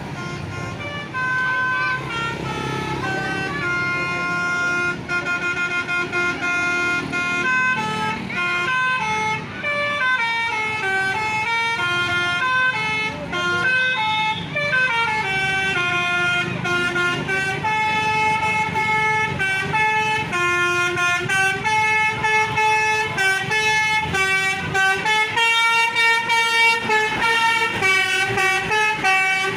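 Multi-tone "telolet" air horn of an Indonesian bus playing a tune. Its chords of steady notes change pitch in quick steps, with some notes sliding up and down in the middle.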